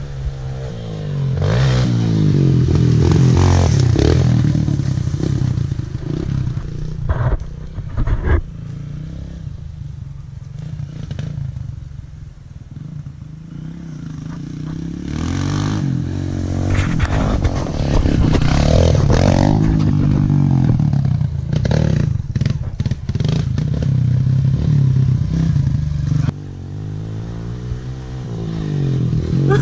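Kawasaki KLX140L pit bike's single-cylinder four-stroke engine, heard from on the bike while it is ridden hard on a dirt trail. The revs climb and fall repeatedly as the rider works the throttle and gears, with clattering and a few sharp knocks from the bike over bumps.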